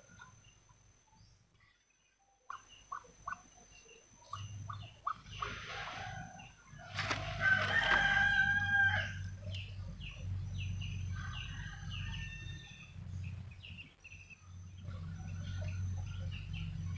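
A rooster crows once, starting about seven seconds in and lasting around two seconds, the loudest sound here. Around it come short high peeps from newly hatched ducklings, over a low steady hum.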